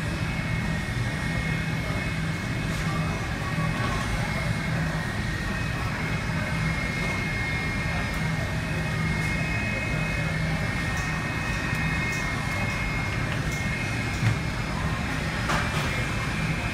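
McDonnell Douglas MD-80's two rear-mounted Pratt & Whitney JT8D turbofans at idle as the airliner taxis in: a steady rumble with a high, even whine. A single short click about fourteen seconds in.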